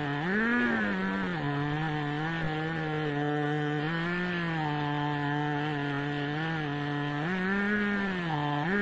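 Two-stroke chainsaw running at high revs under load as it rips lengthwise through a log, guided by a homemade chainsaw mill. Its engine pitch rises and falls briefly about half a second in, about four seconds in and again near the end as the cut loads and eases.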